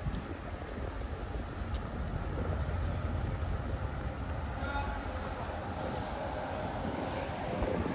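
Street traffic: a road vehicle passing, a low rumble throughout, with a whine of a few steady tones joining about halfway through.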